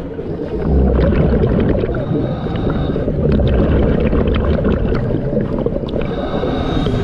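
A scuba diver's exhaled breath bubbling out of the regulator, heard underwater as a low bubbling rumble with small clicks, in two long bursts about a second in and about three seconds in.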